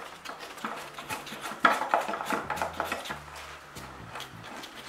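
Irregular metal clicks and knocks as gloved hands handle the side-bar mounting brackets under a van's sill, with one sharper knock about a second and a half in.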